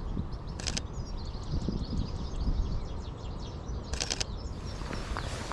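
European goldfinches singing, a run of quick, high twittering chirps, over a steady low rumble. Twice, once near the start and once about four seconds in, a short burst of rapid clicks cuts across the song.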